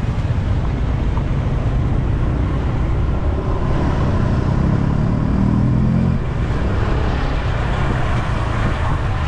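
Wind rumble on the microphone of a rider on the road, with traffic noise. An engine revs up, rising in pitch from about three and a half seconds in, and eases off at about six seconds.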